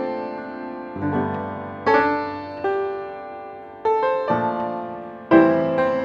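Background piano music: notes and chords struck every second or so and left to die away.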